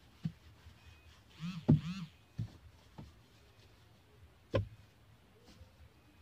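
Duster being worked over a car dashboard and steering wheel, with a few scattered dull knocks as it bumps the hard trim; the loudest knock comes a little under two seconds in and another about four and a half seconds in.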